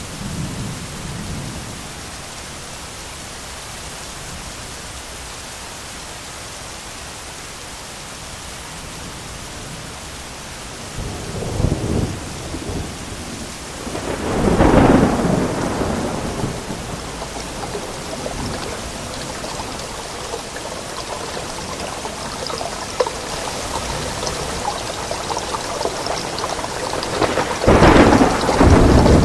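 Steady rain falling in a thunderstorm, with rolls of thunder rumbling up over it: one about a third of the way in, a louder one about halfway, and another near the end.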